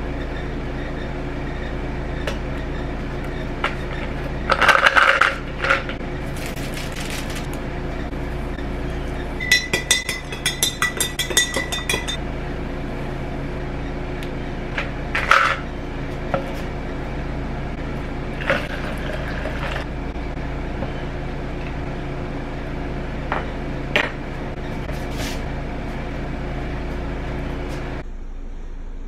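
Ceramic mug and metal spoon clinking over a steady electrical hum: a few single clinks, and a quick run of rapid ringing clinks for about two seconds.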